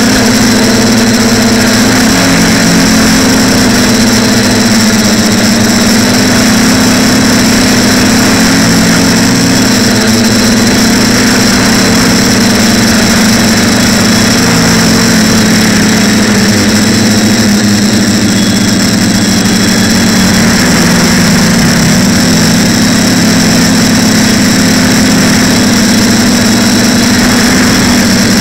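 TBS Discovery quadcopter's electric motors and propellers buzzing in flight, the pitch wavering up and down as the throttle changes, over a steady high hiss.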